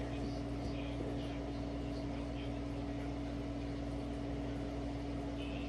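Steady machine hum: one held tone over a lower drone, unchanging throughout.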